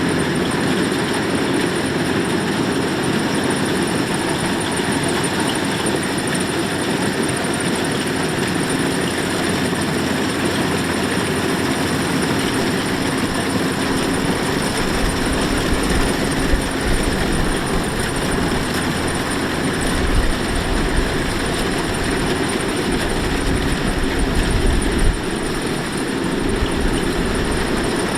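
Kubota DC-105X rice combine harvester running steadily at work, its engine and machinery making a continuous drone. From about halfway through, a low rumble comes and goes over it.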